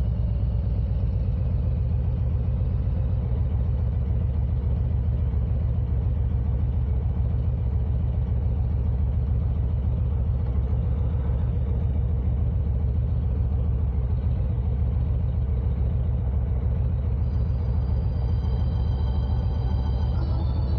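Motorcycle engine idling steadily while stopped.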